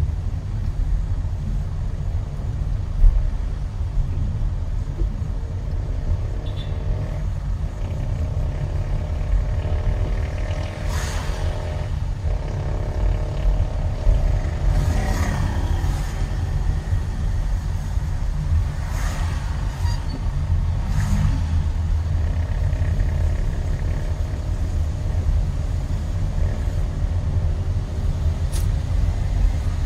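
Car driving along a road: a steady low rumble of road and engine noise, with a few brief swishes scattered through it.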